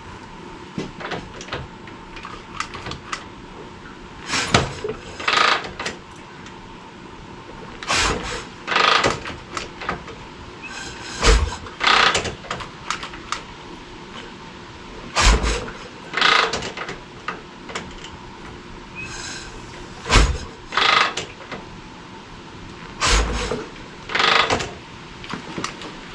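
Harley-Davidson shovelhead V-twin being kicked over: about six kicks, one every three to four seconds, each a heavy thump and a clank of the kick-start lever and ratchet, without the engine starting.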